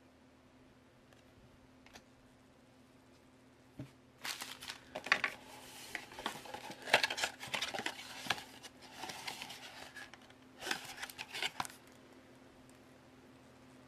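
Crinkling and rustling of a cardboard trading-card blaster box in its plastic wrap as it is handled, in irregular clusters of clicks and crackles starting about four seconds in, with a short pause and a last burst near the end.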